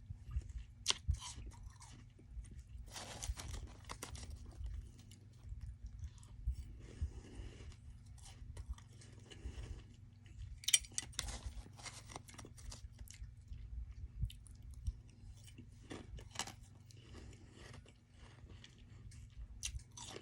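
Close-up chewing and crunching of soft freezer frost ice: irregular crisp crunches, with a few louder bites scattered through, over a steady low hum.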